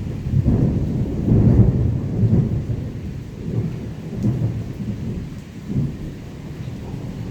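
Thunder rumbling, loudest from about one to two and a half seconds in, then rolling on in weaker waves and dying down, over steady rain.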